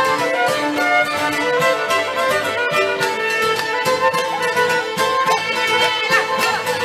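Live Greek folk band playing an instrumental passage, with an amplified violin carrying the melody over guitar and a steady beat.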